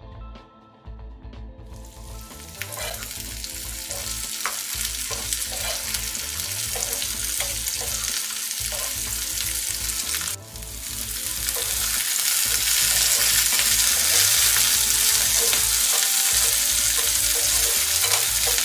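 Diced bell peppers, onion and garlic-ginger sizzling in hot oil in a non-stick frying pan as they are stirred with a steel slotted spoon, with small clicks of the spoon against the pan. The sizzle starts about two seconds in, breaks off briefly about ten seconds in, then comes back louder.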